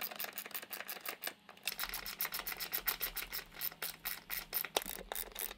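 Hand ratchet clicking rapidly as it turns the T50 Torx bolts of a car seat back into the seat rails, with a short pause about one and a half seconds in.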